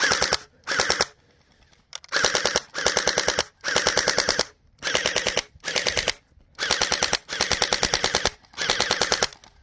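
YaGee DGR-LEI electric gel blaster firing on full auto in about ten short bursts of rapid shots, each burst under a second long with brief pauses between.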